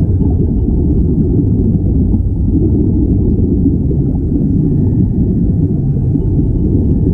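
Steady low rumble of water and streaming air bubbles from air-fed diving helmets, muffled by being recorded underwater.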